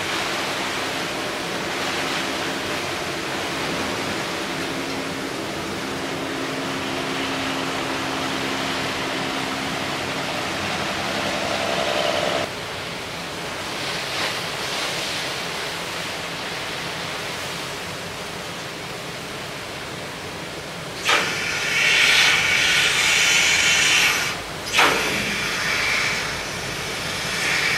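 Steady rushing noise with the low hum of a ship's engine, which stops about halfway through. Near the end, loud bursts of hissing noise come and go, with a sharp knock among them.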